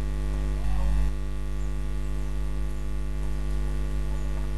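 Steady electrical mains hum with a buzzing edge, with a short low bump just under a second in.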